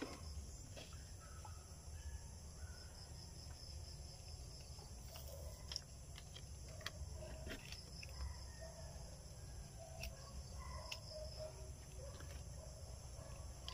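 Faint outdoor ambience: a steady high insect trill with a few short bird calls, and scattered soft clicks and crinkles of a paper sticker label being peeled and handled.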